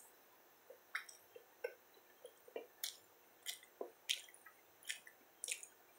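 Faint wet mouth clicks and smacks of a person chewing a bite of a sandwich, about a dozen irregular ticks.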